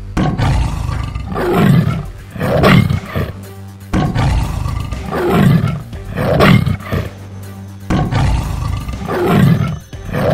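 Big-cat roars from a lion and a tiger, used as cartoon sound effects. They come in pairs about a second apart, three times, over steady background music.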